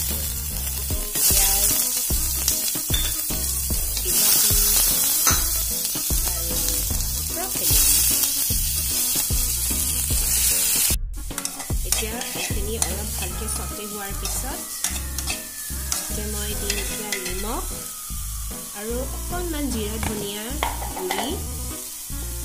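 Black pepper and chilli sizzling loudly in hot oil in a pan. After a brief break about eleven seconds in, broccoli, onion and tomato are stir-fried more quietly, with a metal spatula scraping and clicking against the pan over a steady sizzle.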